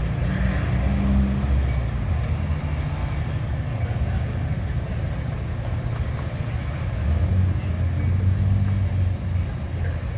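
Diesel train engine running, a steady low drone whose tones swell and fade slightly.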